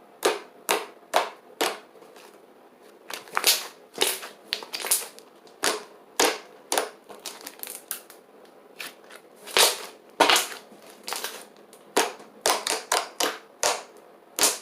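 Glossy, clicky activated slime being squeezed and pressed by hand, giving off sharp clicking pops at an irregular pace, with a couple of short pauses.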